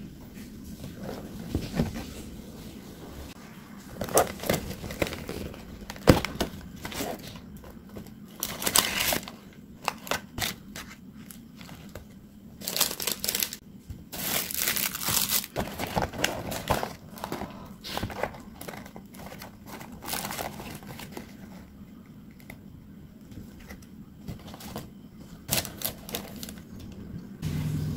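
Cardboard KFC meal box and paper wrappers being opened and handled, crinkling and rustling in irregular bursts. A steady low noise of a shower running elsewhere in the house sits underneath.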